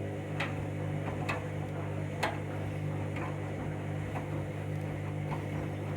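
Candy washing machine motor humming steadily as it turns the drum during the main wash, with scattered light clicks and ticks from the tumbling load. The bedding load is tangled and a bit out of balance.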